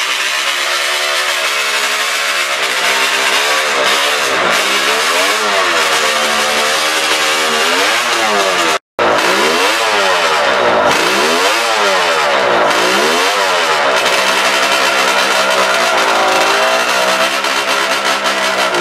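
Suzuki TR750 three-cylinder two-stroke racing engine running, revved up and down again and again by hand on the throttle. The sound cuts out for an instant about nine seconds in.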